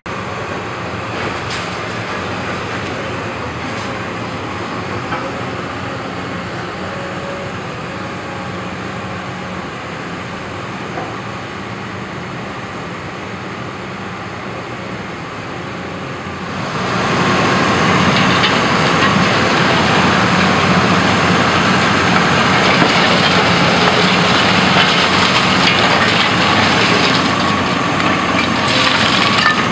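Cat 324E hydraulic excavator's diesel engine and hydraulics working under load as its sorting grab tears into demolition rubble, with cracking and crunching of debris. The sound becomes much louder and fuller a little over halfway through.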